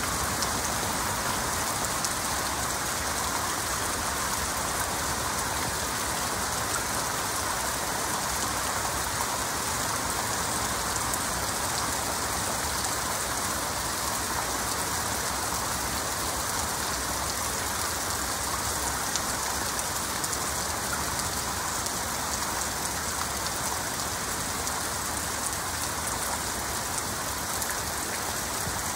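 Heavy rain falling steadily, an even, dense hiss.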